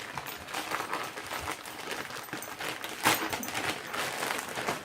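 Packaging bag being opened and handled: a run of rustling, crinkling and small clicks, with a sharper knock about three seconds in.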